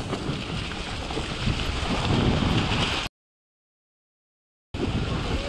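Mountain bike descending a dirt trail, its tyres rolling over dirt and fallen leaves with wind noise on the microphone, getting louder as it picks up speed. Just past the middle the sound cuts out completely for about a second and a half, then resumes.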